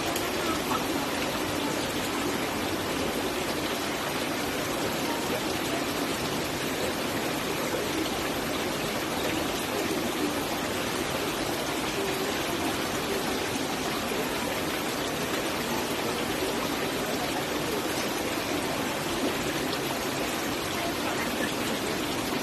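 Water of a waterfall rushing steadily, an even hiss with no breaks.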